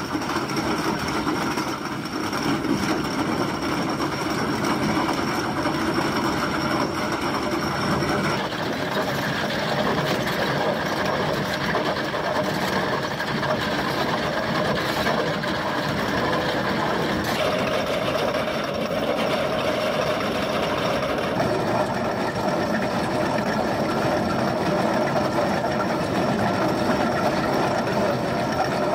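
KEMROC EK 150 hydraulic chain cutter on a CAT 352 excavator grinding a trench into limestone: its pick-studded cutter chain and drums scrape and crunch through rock over the excavator's running diesel engine. The steady mechanical grinding shifts in tone about eight seconds in and again about seventeen seconds in.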